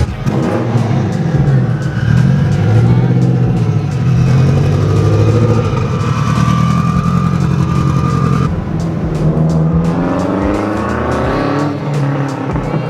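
Car engine running hard under load, its pitch climbing steeply over about the last three seconds as it revs up.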